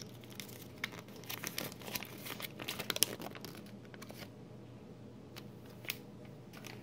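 Packaging crinkling and crackling as it is handled: a quick run of rustles in the first three seconds, then a single brief crackle near the end.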